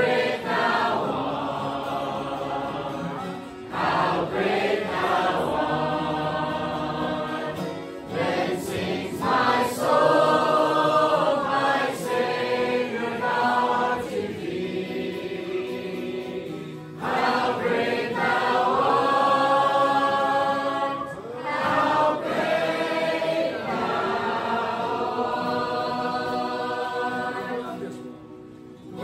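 A congregation singing a hymn together in phrases a few seconds long, with brief breaks between phrases.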